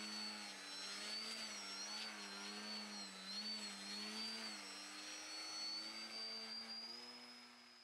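Large gas-powered RC aerobatic plane's DLE 111 twin-cylinder two-stroke engine and propeller heard in flight, the pitch rising and falling as the plane manoeuvres, fading away near the end.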